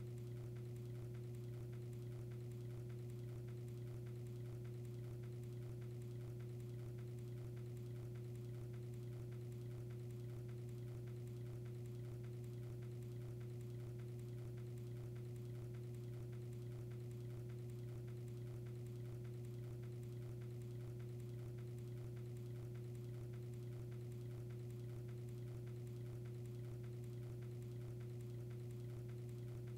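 A steady low hum with a fainter, higher tone above it, unchanging throughout.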